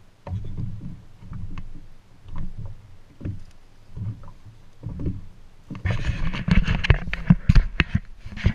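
Low, gusty rumble and soft thumps of wind on the microphone and water slapping the hull of a small boat. From about six seconds in come loud rustling and a run of sharp knocks as the hull-mounted camera is grabbed and turned.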